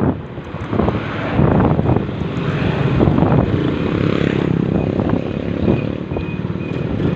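Motorcycle on the move: engine running under loud wind rush on the microphone. A faint high beep repeats in the background from about two and a half seconds in.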